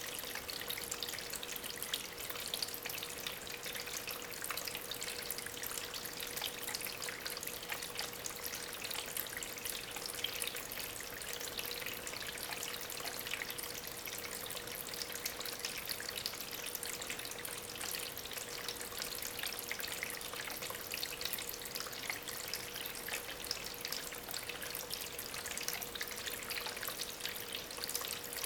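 Water from a small homemade tabletop waterfall, fed by an aquarium pump, trickling and splashing steadily over stones, with a faint steady hum underneath.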